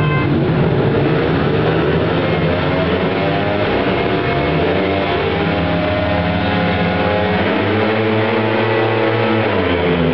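Several speedway bikes' 500cc single-cylinder methanol engines revving at the starting tapes, their pitch climbing and dropping over and over, with a big rise just before the start and a sharp drop near the end.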